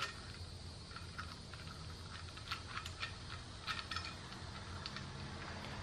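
Faint light clicks and rattles as the wires and plug connectors of a Trail Tech Vapor gauge are fed through the cutout in its mounting bracket, a few small ticks near the middle, over a low steady hum.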